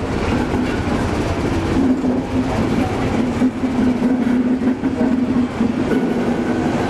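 Class 73 electro-diesel locomotive passing close by at low speed with its coaches: a steady mechanical drone over the continuous rumble and clatter of wheels on the rails.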